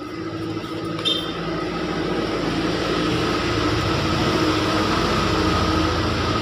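A motor vehicle's engine running close by, growing louder over the first few seconds and then holding steady, with a short click about a second in.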